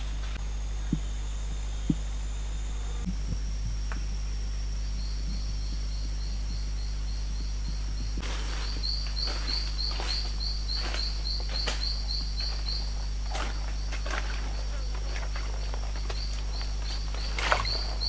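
Forest background with a high, fast pulsed trill at about three pulses a second, starting about five seconds in, over a steady high ringing. From about eight seconds in, footsteps rustle and crunch through leaf litter and undergrowth as a person walks, with the loudest crunch near the end.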